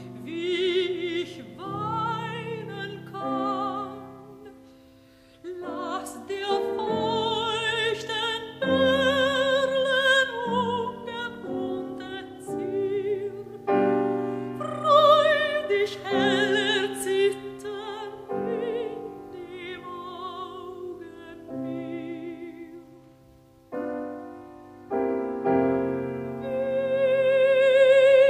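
A contralto singing a German art song with piano accompaniment, her long notes carrying a wide vibrato. The phrases are broken by two brief quiet moments, about five seconds in and again around twenty-four seconds.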